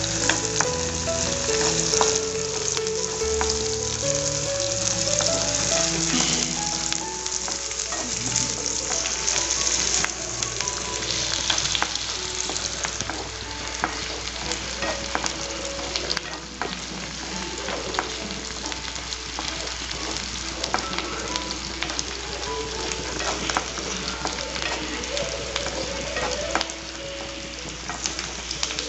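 Sliced shallots, curry leaves and dried red chillies sizzling in hot oil in a non-stick pan, stirred with a wooden spatula that scrapes and taps against the pan.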